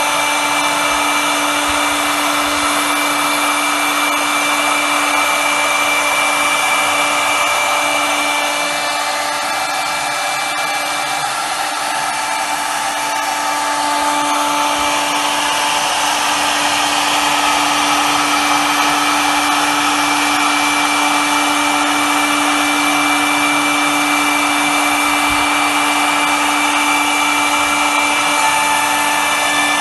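CNC router spindle running with a steady whine while its cutter mills outlines into a white-faced wooden panel, over a hiss from the cut. The sound eases slightly for a few seconds about a third of the way through, then comes back up.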